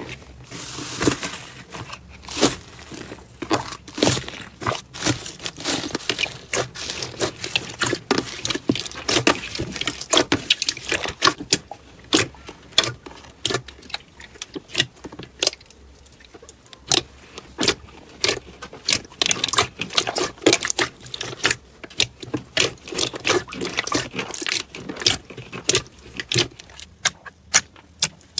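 Slime being squeezed, poked and stretched by hand, making a dense run of irregular clicking and crackling pops.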